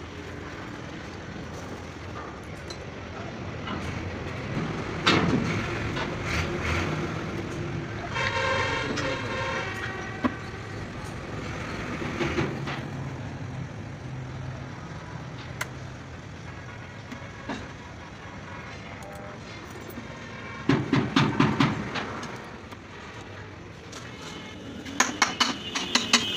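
Running vehicle noise, with a horn-like pitched tone sounding for about two seconds roughly eight seconds in. Two bursts of rapid rattling come near the end.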